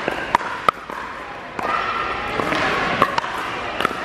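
Pickleball paddles striking the hollow plastic ball during a rally: a string of sharp pops, about five in four seconds, each with a short ring, in a large indoor hall over a murmur of voices.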